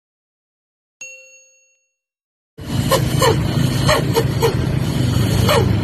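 A single ringing ding that fades out over about a second, then a sudden loud, steady low rumble of a motor, which sets in about two and a half seconds in.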